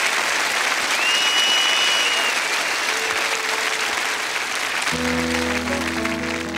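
Large audience applauding, with a held whistle from the crowd about a second in. About five seconds in, the band starts sustained instrumental chords under the clapping.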